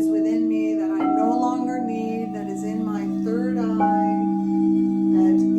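Crystal singing bowls ringing with steady low sustained tones; one bowl is struck about a second in and another near four seconds, each adding a new higher tone. A wordless voice sings over the bowls.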